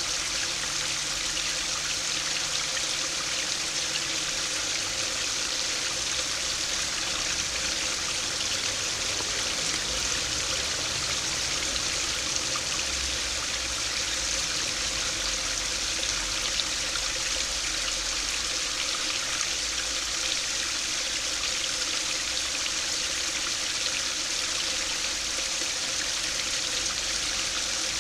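Small stream spilling over a low weir into a shallow pool: a steady, unbroken splashing of falling water with a bright hiss.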